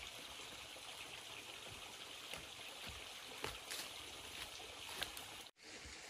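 Steady rushing hiss of a small stream, with a few soft crunching footsteps on dry leaves and twigs scattered through it.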